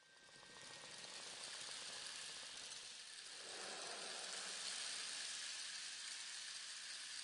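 Steady hiss of falling rain, fading in from silence over about the first second.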